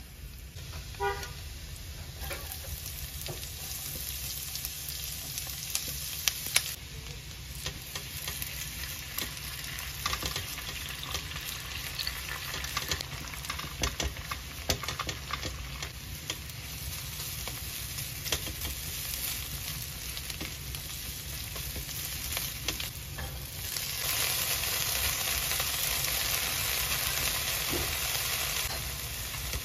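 Chopped garlic and onion, then beaten eggs and mixed vegetables, frying in oil in a nonstick pan with a steady sizzle. A spatula clicks and scrapes against the pan throughout. The sizzle grows louder for a few seconds near the end.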